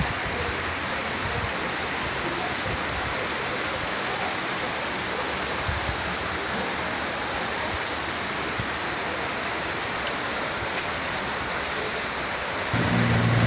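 Muddy floodwater rushing down a steep street in a heavy downpour: a steady, even rushing of water. Near the end a low hum comes in.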